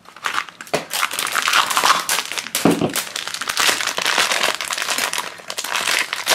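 Thin plastic wrapper crinkling and crackling without a break as hands pull and peel it off a small plastic toy bottle.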